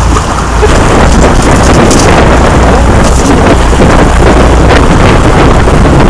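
Fishing boat's engine running steadily under heavy wind rumble on the microphone, with a few brief clicks near the middle.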